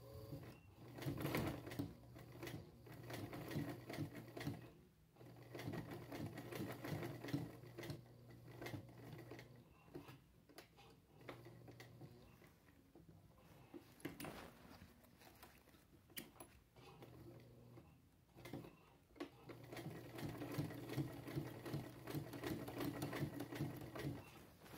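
Vintage Visseti sewing machine stitching in several runs of a few seconds each, with short pauses between. A steady hum runs under the rapid clatter of the needle.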